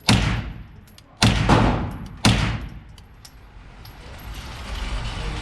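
Three pistol shots about a second apart, each a sharp crack with a long echoing tail. A steady rushing noise builds in the last two seconds.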